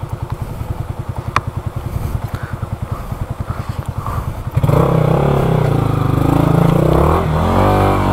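Yamaha R15 V3's single-cylinder engine idling with an even pulse, then revved hard about four and a half seconds in and held at high revs as the bike pulls up the rocky trail.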